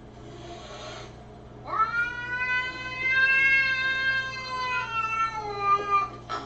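Domestic cat's defensive warning at an intruder: a short hiss, then one long drawn-out yowl that holds steady and drops in pitch near the end.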